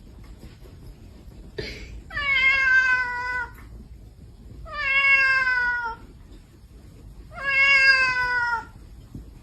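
A pet animal gives three long, drawn-out cries about two and a half seconds apart. Each cry holds a steady pitch and drops slightly at the end.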